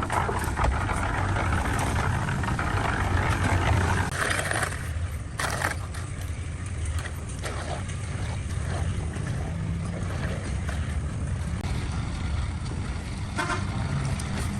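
A motor or engine running steadily with a low hum, with a louder rushing noise over it for the first few seconds and a few short knocks later on.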